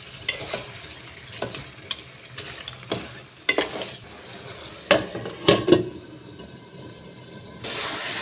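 Crab pieces sizzling in masala in a steel wok while being sautéed down, with a metal spatula stirring and scraping and giving sharp clicks against the pan. The sizzle drops for a moment about six seconds in, then comes back louder near the end.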